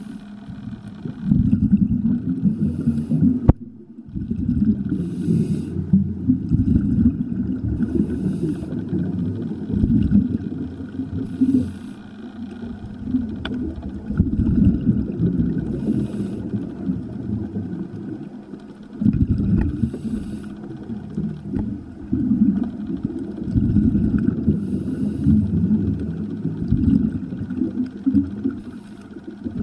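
Scuba diver breathing through a regulator underwater: a short hiss on each inhale, about every three to five seconds, with a rumble of exhaled bubbles in between. A single sharp click about three and a half seconds in.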